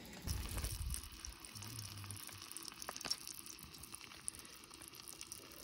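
Faint crackling and sizzling from a wood cooking fire with a pan over the flames, scattered small pops throughout. A brief low rumble in the first second.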